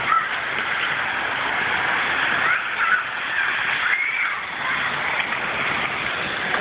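Floodwater rushing and sloshing in a steady, even wash of noise.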